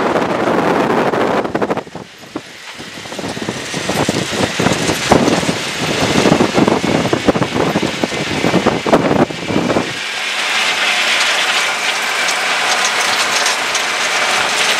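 Tomcar off-road vehicle driving over a rough desert dirt track: irregular rattling and knocking from the vehicle over the bumps, mixed with wind and tyre noise. About ten seconds in, the clatter gives way to a steadier hiss.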